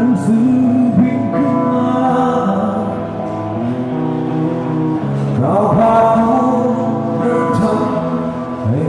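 Live band playing the instrumental intro of a Thai rock song, sustained chords with sliding notes a few times, before the vocals begin.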